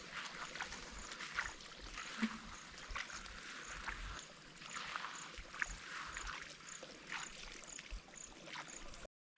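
Running stream water with irregular splashes and sloshing. A faint high chirp repeats about twice a second throughout, and the sound cuts out briefly near the end.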